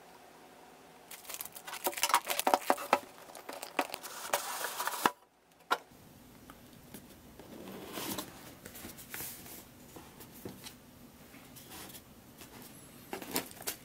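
Scissors cutting the seal on a cardboard product box, with plastic crinkling and tearing in a busy run of clicks and rustles. After a short break, softer rustling and a few light knocks as a black cardboard box's lid is lifted and the packed contents are handled.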